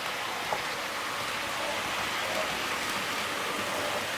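Jouef HO-scale TGV Duplex model train running past on its track: a steady rolling noise of wheels on rail with a bit of groaning from the transmission on its two powered axles. A short click about half a second in.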